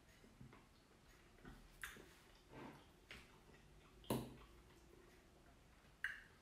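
Fork tapping and scraping against a plate and a salad bowl: a few short, quiet clinks, the loudest about four seconds in.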